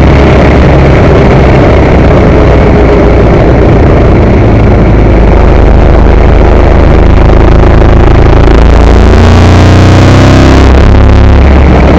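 Ducati 916's V-twin engine running hard at speed, heard from the onboard camera with heavy wind rush over the microphone. About nine seconds in the revs drop, then climb steadily before a gear change near the end.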